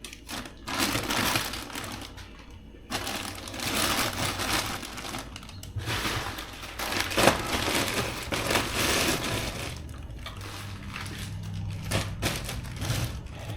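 Rustling, clattering and clicking of small parts and tools being handled and moved about on a workbench, in irregular stretches with a few sharp knocks.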